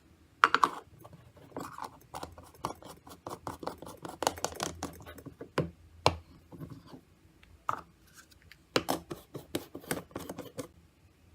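Stainless steel vacuum food jars being handled and packed into a small insulated lunch bag: a run of clicks, taps and scraping rustles, with a sharper knock about six seconds in.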